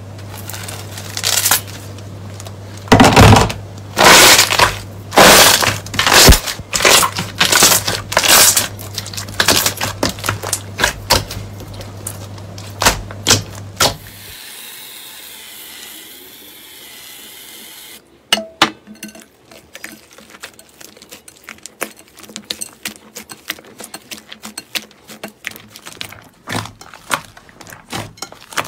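Slime being handled in turn: a thick clear slime stretching from a wire grill rack with loud, irregular sticky pops over a steady low hum, then a short soft hiss. From about 18 s, hands squeezing thick slime in a glass bowl make many quick small clicks and pops.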